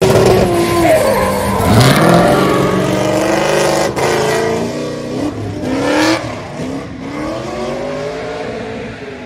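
Drift cars' engines revving hard, rising and falling in pitch as the cars slide with their rear tyres spinning. The sound grows fainter over the last few seconds.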